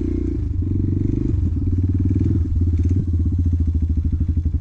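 Motorcycle engine running under way, its note breaking briefly three times in the first two and a half seconds, then settling into an even pulsing beat.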